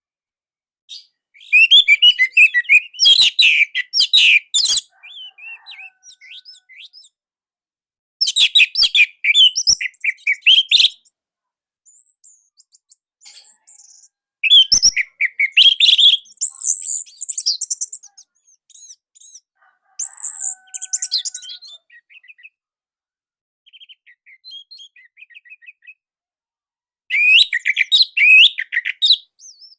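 Orange-headed thrush (anis merah) singing: loud, fast, tightly packed phrases of a few seconds each, five times over, with softer snatches of song and short silences between them.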